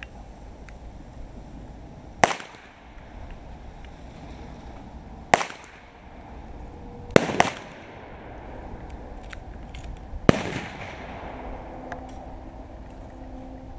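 Five gunshots at a shooting range, spaced a few seconds apart, two of them in quick succession about halfway through, each with a short echoing tail.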